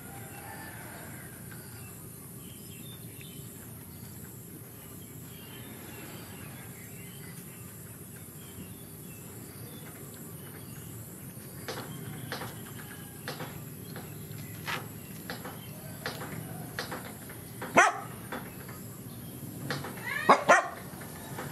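A dog barking: one short bark, then a quick double bark near the end. Sharp clicks come before them from about halfway through.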